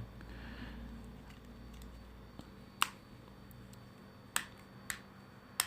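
Plastic locking clips of a Samsung Galaxy A71's middle chassis unclicking as it is prised away from the screen frame: four sharp clicks at irregular intervals.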